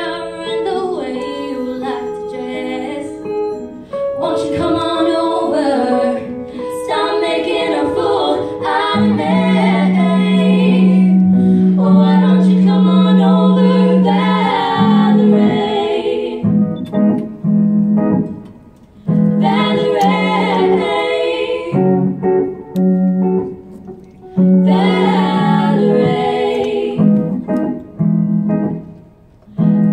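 Female vocal trio singing into microphones, the three voices in harmony, over a piano accompaniment, with brief breaks between phrases.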